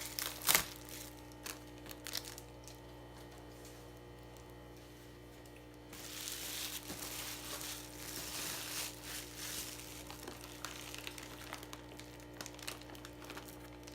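Plastic insulation bag and packaging crinkling as they are handled and opened: a sharp rustle about half a second in, a quieter stretch with a few light clicks, then steady crinkling from about six seconds on. A faint steady hum runs underneath.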